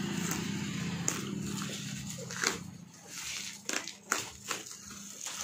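Plastic bubble wrap and packing tape crinkling and crackling as they are picked at and pulled by hand, with a scatter of sharp crackles in the second half. A steady low hum runs underneath in the first half.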